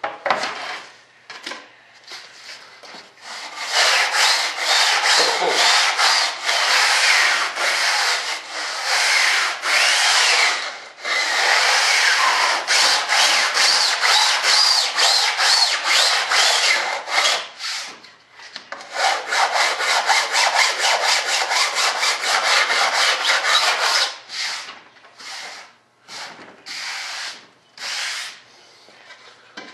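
Coarse sandpaper on a sanding block, rubbed by hand along the leading edge of a model airplane wing to round it to a radius. Fast back-and-forth rasping strokes, with brief pauses about 11 and 18 seconds in, and only a few separate strokes in the last few seconds.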